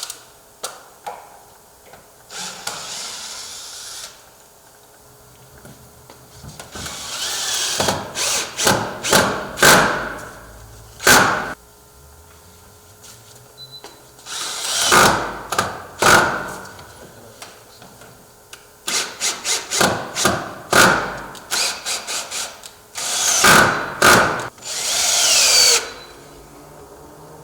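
Power drill driving hinge screws through a door's hinges into the frame: short pulses of the motor in several groups a few seconds long, with pauses between.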